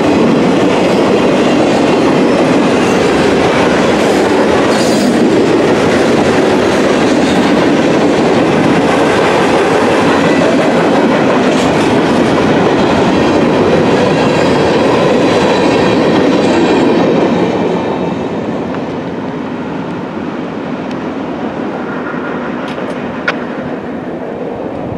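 CSX freight train's cars rolling past at close range: a steady rumble and clatter of steel wheels on rail. About 17 seconds in the noise drops and stays quieter, with a single sharp click near the end.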